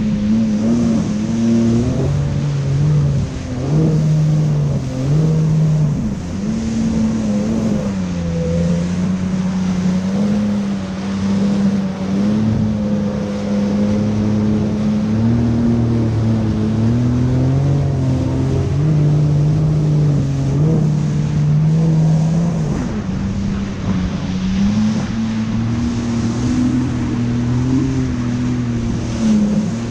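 Yamaha VX Deluxe personal watercraft engine running under way, its note shifting up and down several times with the throttle, over the hiss of water rushing past the hull.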